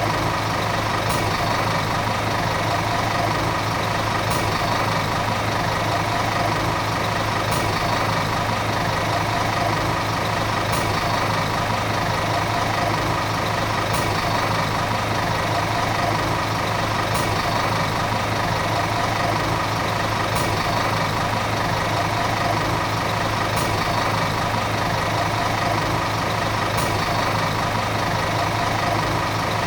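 Volvo city bus diesel engine running steadily at a constant speed, with a faint high click about every three seconds.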